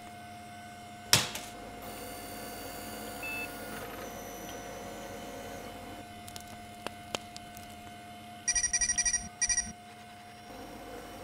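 A balloon bursting with one sharp bang about a second in, over a steady electrical hum. Near the end come two quick runs of rapid electronic beeps.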